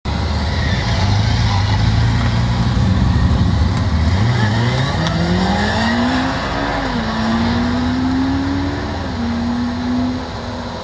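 Honda CBR1100XX Blackbird's inline-four engine running at low steady revs, then accelerating away: the pitch climbs, dips briefly twice as it shifts up, and the sound fades as the bike moves off.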